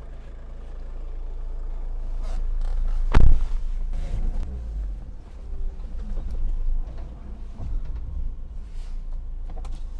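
JMC Yusheng 2.4T turbo-diesel SUV crawling down a rough off-road slope: a low engine and tyre rumble, a single loud thump about three seconds in, then several lighter knocks and creaks from the body and suspension.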